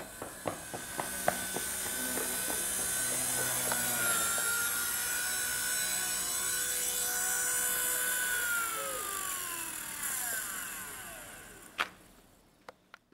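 Blade mCP X micro RC helicopter's electric motor and rotor whining at a steady pitch, with a few light clicks in the first second or so. About eight seconds in the rotor spools down, its whine falling in pitch and fading out, with a sharp click near the end.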